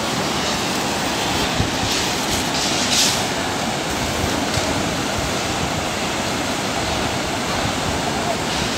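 Muddy floodwater rushing between concrete dam piers, heard as a steady rushing noise with a brief louder hiss about two and three seconds in.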